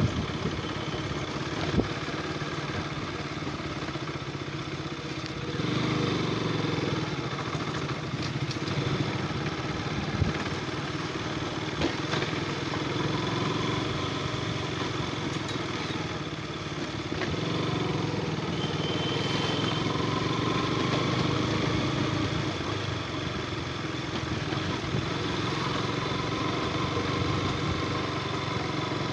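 Motorcycle engine running steadily, a little louder from about six seconds in and again around twenty seconds.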